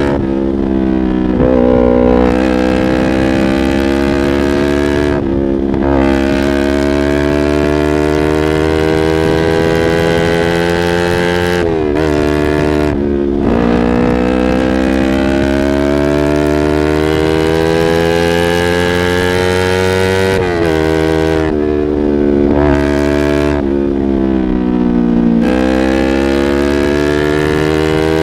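Yamaha R25's parallel-twin engine running through a Proliner aftermarket exhaust while being ridden through the gears. The pitch climbs steadily, then breaks off and drops at each gear change, several times.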